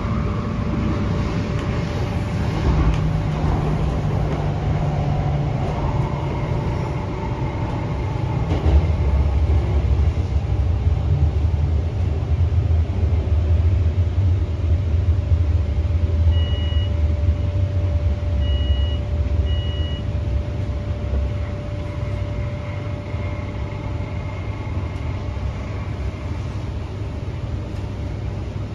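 Inside a Hyundai Rotem K-Train electric multiple unit running: low wheel-and-track rumble with a steady hum, the rumble growing heavier a third of the way in as the train enters a station, then easing as it slows. Three short high beeps sound a little past the middle.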